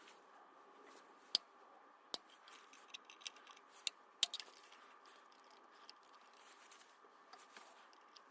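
A handful of sharp clicks and light knocks from tools and parts being handled during engine work, the loudest about a second and a half in and at about two seconds, over a faint steady hum.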